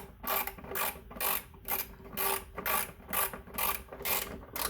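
Hand ratchet tightening a 5 mm hex bolt on a motorcycle's front end: a steady run of short ratcheting rasps, about two strokes a second, as the handle is swung back and forth.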